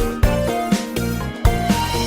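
Background music: an upbeat instrumental tune with a steady beat, strong low beats about twice a second under a bright melody.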